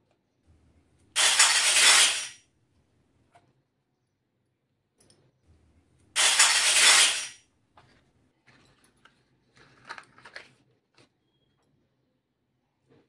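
Two loud, sudden bursts of hissing, crash-like noise about five seconds apart, each lasting just over a second. Between them and toward the end come soft clicks and taps of small toy kitchenware being handled and set down.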